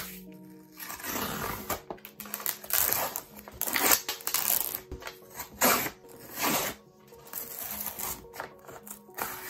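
A paperback's card cover and the paper along its spine crackling and tearing in several rough pulls as the cover is peeled away from the glued spine. Soft background music plays steadily underneath.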